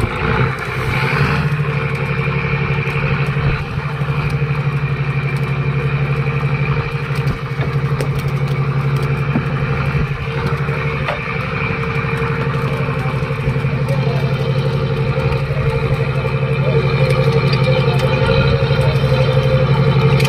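Inboard engine of a mechanised fishing boat running steadily, a constant low hum with a steady higher tone above it, a little louder in the last few seconds.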